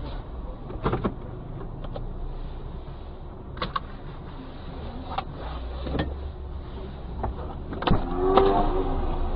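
Low steady hum of a stationary car heard from inside its cabin, with scattered light clicks and knocks.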